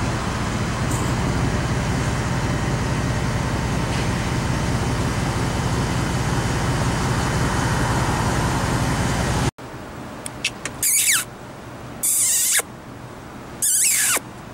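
Steady low rumble of the running vehicle, heard from inside it, cutting off abruptly about nine and a half seconds in. After that come several short, high calls, some falling in pitch, from bald eagles.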